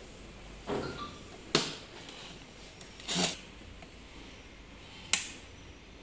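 Handling noises of hands and a small tool taking out the screws of an electric scooter's side turn signal: two sharp clicks, about a second and a half and five seconds in, with a couple of duller knocks and rustles between them.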